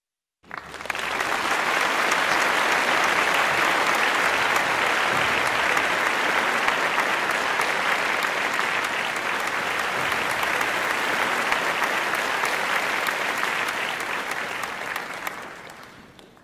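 Theatre audience applauding. The clapping comes in abruptly about half a second in, holds steady, then fades out near the end.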